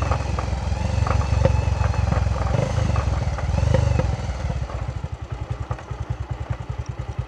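Bajaj Avenger motorcycle's single-cylinder engine running at low speed, then dropping to idle about four seconds in, where it settles into an even, quick putter of separate beats.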